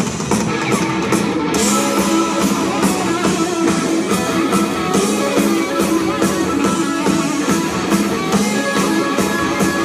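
Live rock band playing: electric guitars and bass over a drum kit, loud and steady, heard from the audience.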